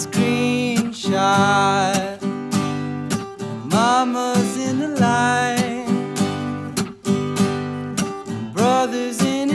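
A man singing over a strummed acoustic guitar. The sung notes swoop up at their start and are held for about a second each, phrase after phrase.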